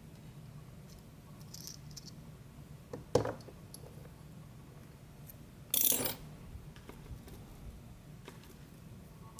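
Small metal discs and spacers from a disassembled Abloy DiskLock, clinking as they are handled and set down. There is a sharp clack about three seconds in and a louder, longer clatter around six seconds in.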